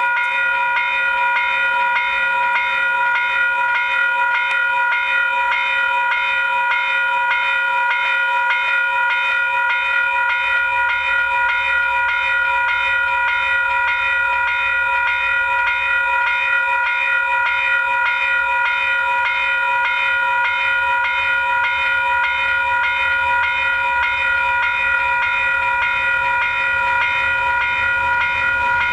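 Level crossing warning bell ringing continuously in even, rapid strokes. A low rumble from an approaching train builds steadily beneath it from about a third of the way in.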